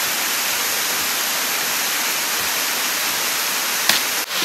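Steady rushing of a waterfall, with one short click near the end.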